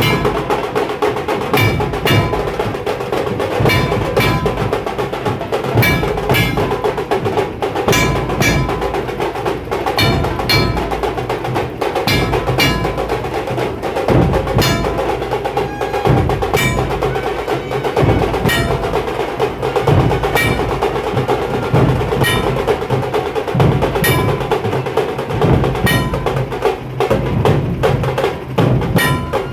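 Dhol-tasha group playing: big dhol drums with fast, rolling tasha drumming and a ringing metallic strike every half second to a second, keeping a steady beat.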